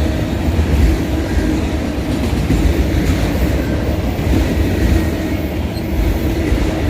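Autorack freight cars rolling past, a steady loud rumble of wheels on rails.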